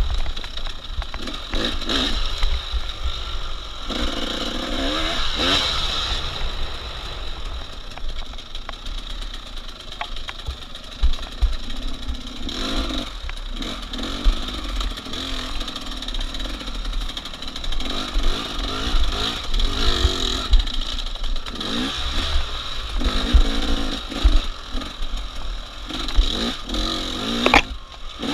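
Enduro motorcycle engine revving up and down in repeated surges while being ridden, with wind rumbling on the microphone.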